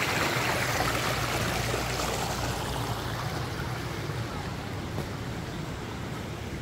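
Water spilling over a low concrete weir into a channel: a steady rushing that slowly fades over the second half.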